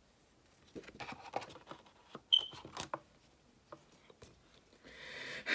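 Quiet handling of paper and plastic merchandise: scattered light taps and clicks, with a rustle that swells near the end.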